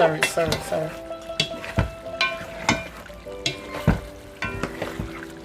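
A spoon stirring curried chicken in a pot on the stove: irregular clinks and scrapes against the pot over a light sizzle.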